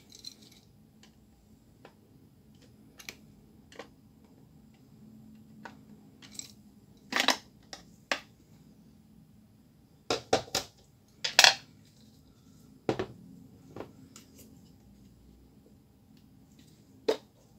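Hard plastic clicks and knocks of a Samsung MLT-R204 imaging drum cartridge being taken apart by hand with a screwdriver. The cover strip comes off and parts are set down, giving scattered sharp clicks, with the loudest ones bunched about ten to twelve seconds in.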